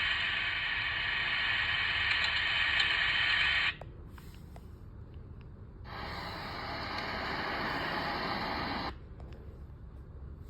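Rain sound effects: a dense, steady rain hiss that cuts off suddenly a little under four seconds in, leaving a quieter background with scattered drip ticks. About two seconds later a second stretch of heavy rain starts, lasts about three seconds, and cuts off suddenly again, back to sparse drips.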